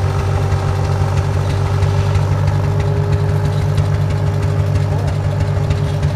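Early John Deere two-cylinder tractor engine idling with a steady, even, rapid beat.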